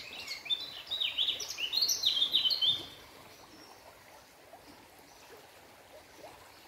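A songbird singing a rapid twittering phrase of high, stepping notes for about three seconds, after which only a faint steady hiss remains.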